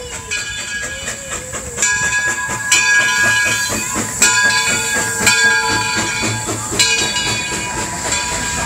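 Vintage steam locomotive rolling slowly past at close range, steam hissing. From about two seconds in there is a high metallic ringing, struck again roughly every second, which fades near the end as the passenger cars roll by.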